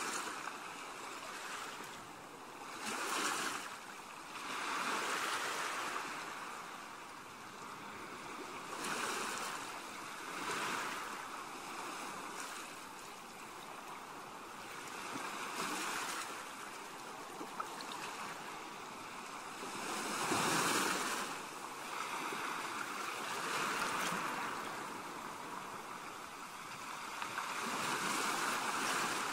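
Small sea waves breaking and washing onto a sandy shore, swelling and fading every few seconds.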